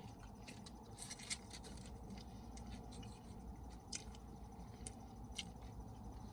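Close-miked chewing and mouth sounds while eating a taco: soft scattered clicks and smacks, with a small cluster about a second in and a few sharper single clicks later.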